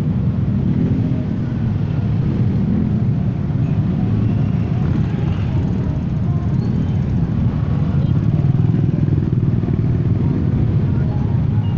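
Steady loud rumble of dense traffic: many small motorcycle and scooter engines running and moving off together.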